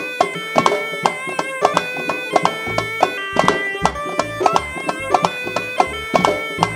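Live instrumental playing by a Tunisian traditional band: frame drums and hand drums beating sharp, repeated strokes under a steady melody line, with no singing yet.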